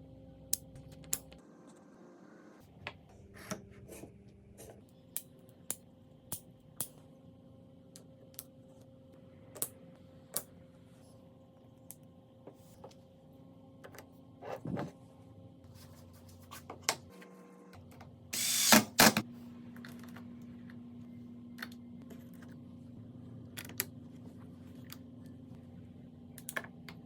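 Scattered sharp clicks and knocks of wooden workshop parts being handled and set down, over a faint steady hum, with a brief loud burst of rasping noise about eighteen seconds in.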